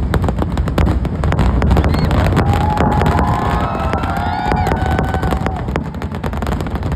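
Fireworks display going off in a dense, continuous barrage of rapid cracks and bangs over a deep rumble. From about two seconds in, several whistling fireworks sound together for a few seconds, held steady and dropping away at their ends.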